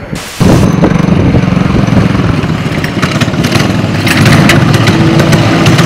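Small single-cylinder minibike engines running loud. The sound cuts in abruptly about half a second in.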